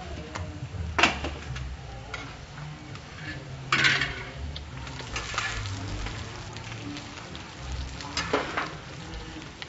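Tortillas and meat sizzling on a street taco vendor's steel flat-top griddle, with metal tongs and spoons clattering against the griddle and steel bowls. Three louder clanks come about a second in, near the middle and near the end, the middle one the loudest.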